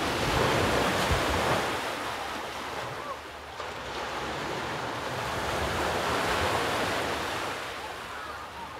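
Sea surf washing on a rocky shore, the rush swelling, easing and swelling again, with wind buffeting the microphone.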